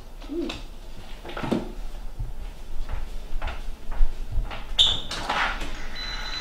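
Footsteps and a door being opened: scattered soft thumps and knocks, with a brief high-pitched sound about five seconds in.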